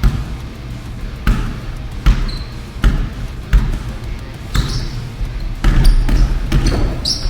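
Basketball dribbled hard on a gym floor, a bounce roughly every second, with several short high squeaks of basketball shoes on the court.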